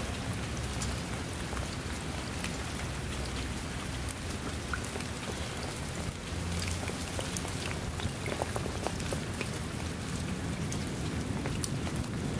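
Rain falling onto a shallow puddle and muddy rivulet: a steady patter with many separate drop splashes.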